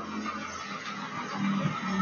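Street traffic noise, with an auto-rickshaw's engine running close by as a steady low hum that grows louder near the end.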